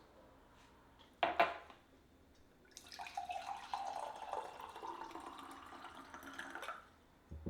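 Water running from a tap for about four seconds, its tone rising steadily as it runs. A brief clatter comes about a second in, and a short thump near the end.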